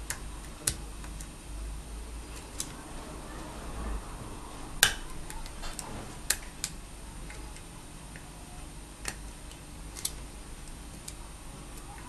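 Irregular small metallic clicks and ticks of a lock pick and tension tool working the pins of a cruciform lock during single-pin picking, the loudest click about halfway through.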